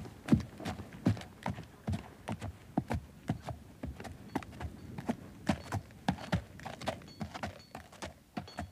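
Hoofbeats of a horse walking: an uneven clip-clop of about two to three hoof strikes a second.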